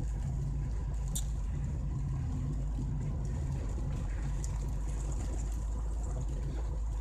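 Steady low rumble of a car's engine and tyres heard from inside the cabin while driving on a wet road, with a single faint click about a second in.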